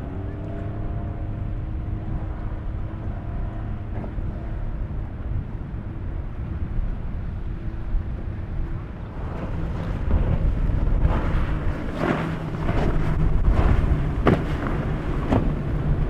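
Outboard motor on a small inflatable dinghy running at speed, a steady engine hum over wind rumble on the microphone. From about nine seconds in it gives way to louder, rougher rushing noise with short sharp spikes, as from a bigger boat's wake and spray.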